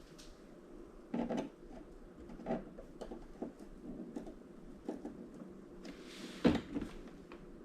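Scattered knocks and clicks of tools and a screwdriver being handled against a TV's plastic casing, with the loudest knock about six and a half seconds in.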